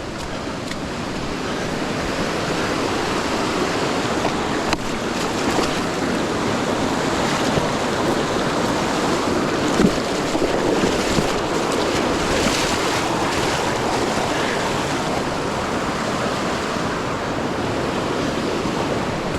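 Steady rush of a fast-flowing river, a continuous even noise that swells a little over the first few seconds, with a few faint clicks.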